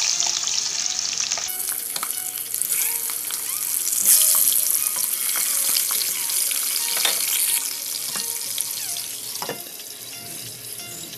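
Katla fish heads sizzling and spattering as they fry in hot mustard oil in a nonstick wok. The sizzle flares up about four seconds in and eases off near the end.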